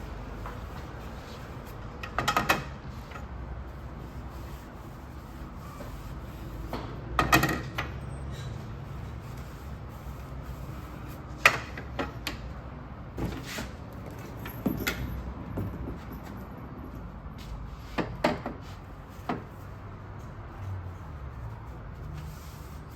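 PVC pipe parts knocking and clattering now and then as they are handled and wiped clean, over a low steady hum. The loudest knocks come about 2 s, 7 s and 11 s in.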